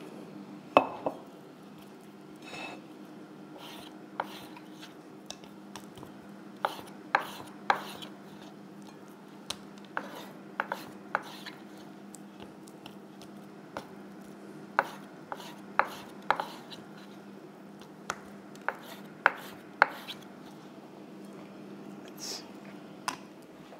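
Long scalloped-edge knife slicing beef tenderloin into strips on a wooden cutting board: irregular sharp knocks as the blade meets the board. A steady low hum runs beneath, the air fryer preheating.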